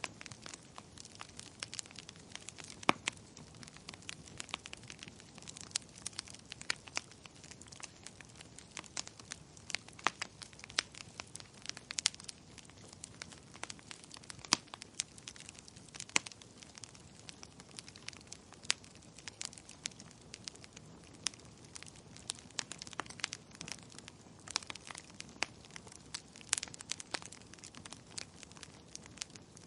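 Wood fire in a fireplace crackling: frequent sharp, irregular pops and snaps over a soft steady hiss of burning logs.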